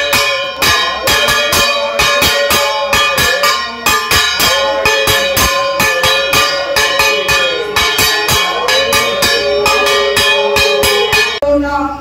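A kansar, a flat bell-metal gong, is struck rapidly with a stick, about four ringing strikes a second. Together with it a conch shell (shankha) is blown in three long held blasts, each dipping in pitch at its end. Both stop just before the end.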